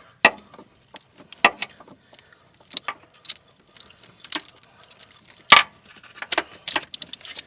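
Irregular metallic clicks and knocks of tools and hands loosening the old oil filter on a Jeep 4.0L inline-six, with one sharper knock about five and a half seconds in.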